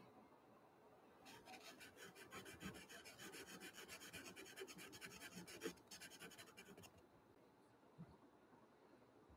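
Pastel pencil scratching on gesso-coated watercolour paper in quick, short back-and-forth strokes, about six a second. It starts about a second in and stops about seven seconds in, then only faint room tone remains.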